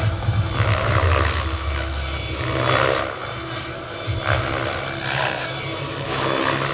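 Gaui X7 electric RC helicopter flying 3D aerobatics: its main rotor whooshes and its motor whines, the sound swelling and fading as it tilts and flips.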